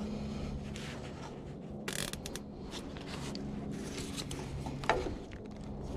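Light rubbing and scraping of hand work on wiring, with short scrapes about two and five seconds in, over a steady low hum.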